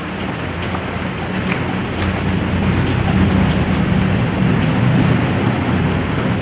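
Steady hiss of heavy rain, growing a little louder about two seconds in, with a few faint clicks of eating.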